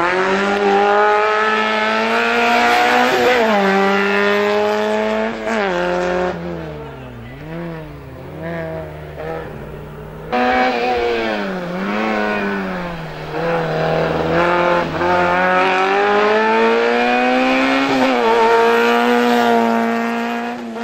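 Slalom race car's engine at high revs, its pitch repeatedly dropping and climbing as it lifts off for the cone chicanes and accelerates out of them. The sound changes abruptly about halfway through.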